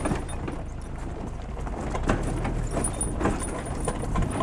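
Motorbike riding down a rough, rocky dirt road: a low rumble with irregular knocks and rattles from the bike jolting over the track.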